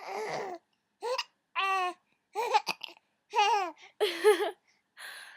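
Baby babbling in a string of short, high-pitched coos and breathy sounds with brief pauses between them.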